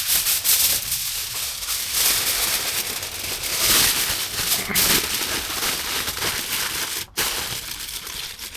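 Aluminium foil crinkling and rustling as a sheet is folded and wrapped around a roast chicken, with a brief break about seven seconds in.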